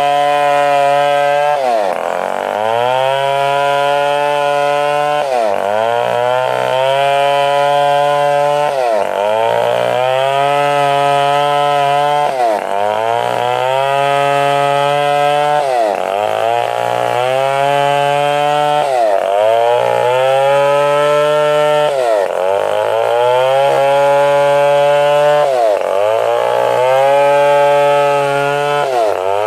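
Stihl 070 two-stroke chainsaw running under load, its engine speed dipping sharply and climbing back about every three and a half seconds.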